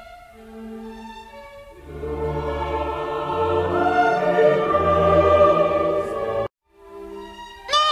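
Soft background music, then about two seconds in a choir and orchestra swell in with loud dramatic classical music, which cuts off suddenly near the end. Right at the end Pingu's honking 'noot' begins.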